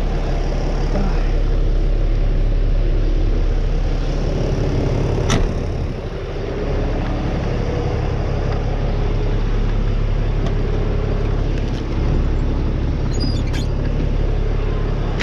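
Fire truck engine idling steadily with a low hum, and a single sharp knock about five seconds in.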